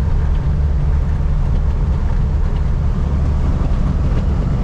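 Semi-truck's diesel engine droning steadily with tyre and road noise, heard from inside the cab while cruising at highway speed.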